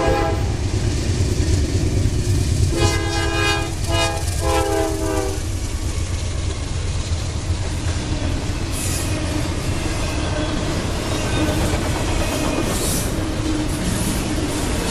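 Diesel freight locomotive sounding its multi-chime horn: a blast ending right at the start, then two blasts in a row about three to five seconds in. The double-stack intermodal cars then roll past with a steady rumble, clickety-clack over the rail joints and a couple of brief wheel squeals.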